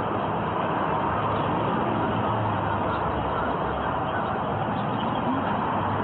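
Steady vehicle and traffic noise: an even, dull rush with a faint low hum, picked up on a body-worn camera's microphone.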